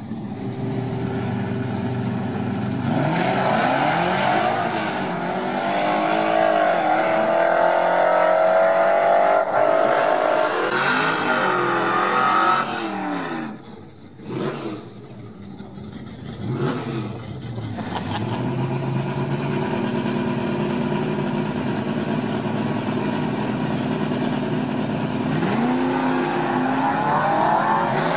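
Drag-racing muscle cars' engines revving hard and running at high rpm, the pitch rising and falling through burnouts and launches. There is a brief dip in loudness about fourteen seconds in.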